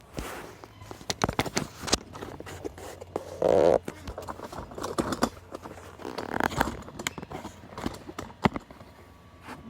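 Irregular light clicks, knocks and scrapes, with one louder burst about three and a half seconds in.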